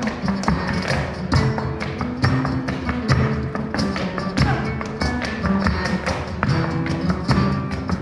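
Live flamenco: a Spanish guitar playing, with the dancer's shoes tapping out rapid, sharp footwork on a wooden board.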